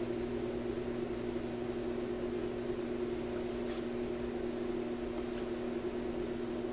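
Steady electrical hum, a few low steady tones with an even hiss over them.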